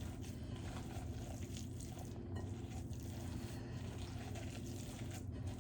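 Soft, wet squishing of hands mixing a canned-salmon patty mixture in a bowl, over a steady low hum.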